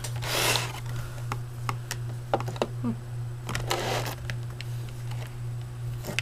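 Clear plastic display packaging being handled and slid on a table: two brief crinkling rustles, about half a second in and near the middle, with scattered small clicks and taps, over a steady low hum.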